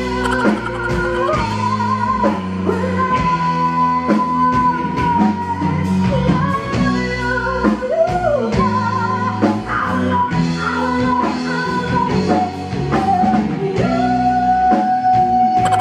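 Live band music: a singer holding long notes over the band's steady accompaniment.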